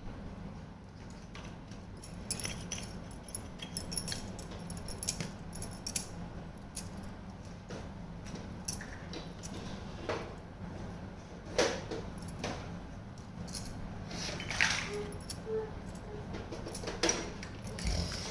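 Small toy kitchen pieces being handled, with scattered light clicks and clinks at irregular intervals over a steady low hum.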